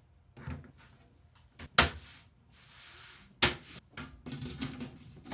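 Metal and plastic PC case panels being handled and fitted: two sharp knocks a second and a half apart, a short rustle between them, then a quick run of lighter clicks and taps near the end.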